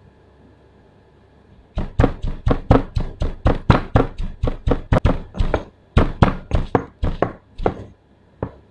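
Pestle pounding chopped red and green chilies in a granite mortar: quick thuds, about four a second, starting about two seconds in, with a short break midway and one last strike near the end.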